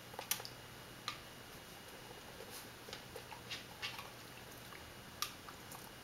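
Small mouth noises from a standard poodle taking treats from the hand, with a few sharp clicks and taps at irregular intervals, the loudest just after the start.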